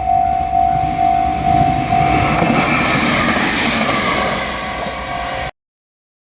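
Japanese level-crossing warning bell clanging a little over twice a second, stopping about two seconds in, over the rumble and rail noise of a passing electric train, which carries on until the sound cuts off suddenly near the end.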